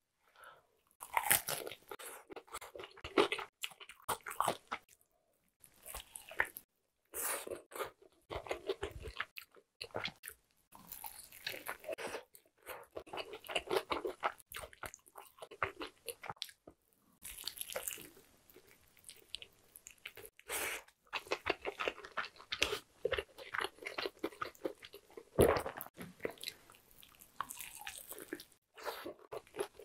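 Close-up crunching bites and chewing of a KFC Zinger Double Down Max, its crisp fried-chicken breading crackling in repeated bursts with short pauses between mouthfuls. One crunch about three-quarters of the way through is louder than the rest.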